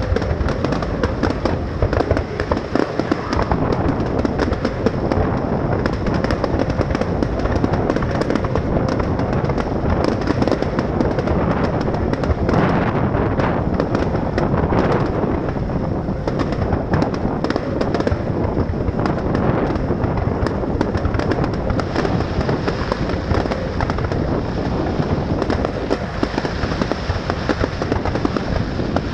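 Fireworks display: a continuous barrage of bangs and crackling reports with no pause.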